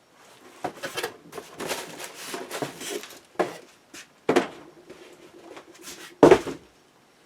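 Unpacking a boxed tool kit and its carrying case by hand: rustling and scraping, broken by several knocks and clunks, the loudest a heavy thump about six seconds in.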